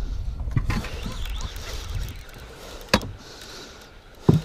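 Wind rumbling on the microphone and water noise while a baitcasting reel is worked against a hooked muskellunge. A single sharp click comes about three seconds in, and a short grunt near the end.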